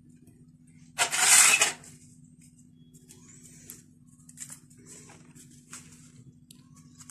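Aluminium foil baking cups crinkling as they are peeled off cupcakes: one loud crinkle about a second in, then quieter scattered crinkles. A steady low hum runs underneath.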